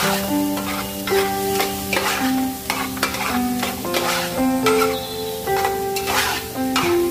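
Sliced onions frying in rendered lamb fat in an aluminium stockpot, sizzling as a metal spatula stirs and scrapes them, with repeated scraping strokes about one or two a second. Background music with held notes plays underneath.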